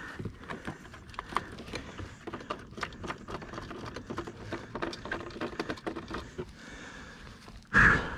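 Hands working at an electric dirt bike's brake wiring and connector: a run of light, irregular clicks and rattles, with one short louder noise near the end.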